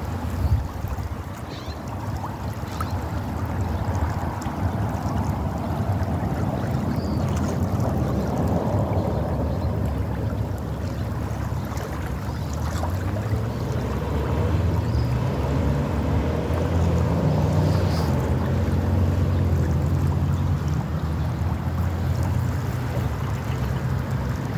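Steady low rumble of wind buffeting the microphone, over the rush of the flowing creek, swelling somewhat in the second half.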